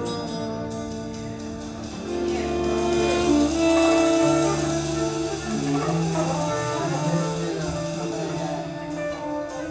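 Instrumental music with long held notes, growing louder about two seconds in.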